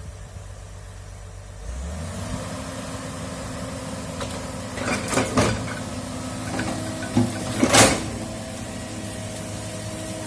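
Excavator's diesel engine running, stepping up in speed and loudness about two seconds in as the machine goes to work. Several sharp metallic clanks follow in the middle, the loudest near the end of them.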